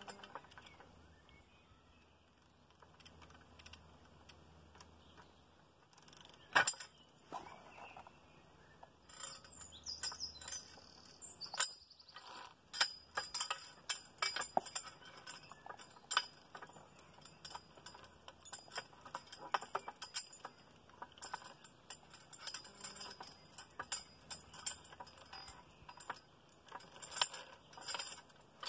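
Metal clicking and clinking of a lever-operated tree jack being worked to roll a big log, a quick irregular run of sharp clicks from its mechanism. It is fairly quiet for the first six seconds, then the clicks come thick and fast.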